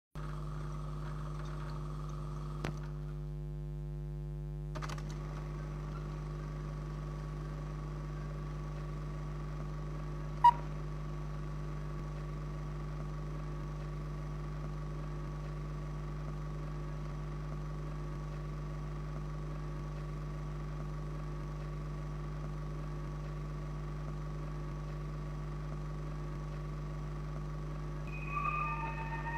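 Steady low hum with faint hiss from an old film soundtrack, with a few faint clicks in the first five seconds and one sharp pop about ten seconds in. A few short high notes start near the end.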